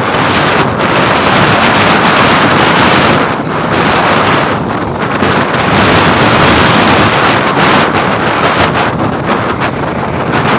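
Heavy wind buffeting the microphone of a camera on a moving motorcycle, with the vehicle and road noise of riding at speed underneath.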